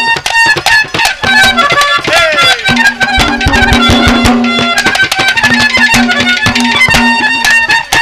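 Live Haryanvi ragni accompaniment playing an instrumental passage: a held melody line over quick, steady percussion strokes, with one falling slide in the melody about two seconds in.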